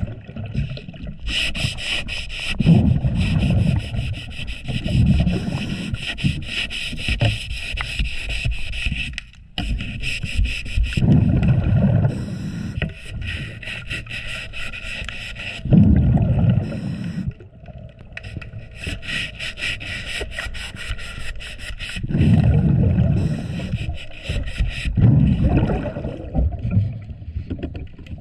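Underwater scraping and rubbing on a boat's trim tab, in repeated heavy strokes every few seconds as marine growth is cleaned off. A scuba diver's exhaust bubbles crackle through the water in long stretches.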